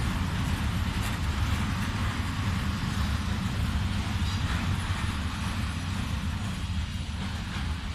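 Freight train of covered hopper wagons rolling past: a steady low rumble and rattle of wagon wheels on the rails, easing slightly near the end.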